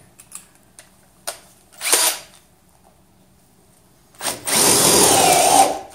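Milwaukee 18V cordless drill with a 5/16-inch wood bit boring into a wooden 4x4. About four seconds in, the motor whine rises as the bit chews through the wood for about a second and a half, then stops just before the end, after a short burst of sound about two seconds in.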